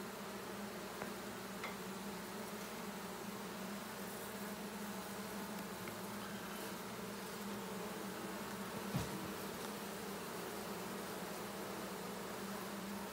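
A honeybee swarm buzzing in a steady, even hum, with a few faint clicks and a single short knock about nine seconds in.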